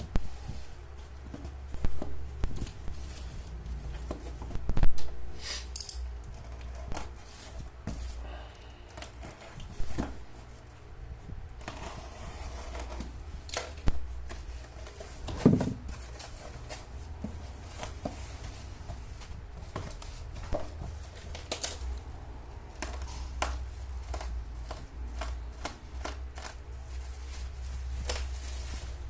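A parcel being handled and unpacked: irregular clicks, taps and short rustles and tears of packaging.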